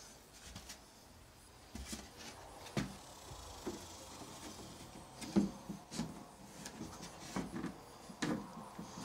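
Light, irregular knocks, taps and rubbing as hands handle parts against wooden wall studs and plywood. The small impacts are scattered throughout, with the sharpest about five seconds in.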